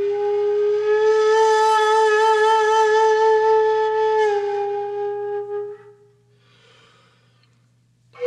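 Background music: a solo wind instrument holding one long note with vibrato, stepping down slightly about four seconds in and fading out a couple of seconds later; a new note begins right at the end.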